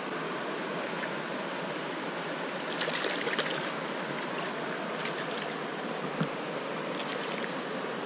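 Steady rush of flowing stream water, with short splashes three times as a hooked trout thrashes in the shallows and is taken in hand. One soft knock comes about six seconds in.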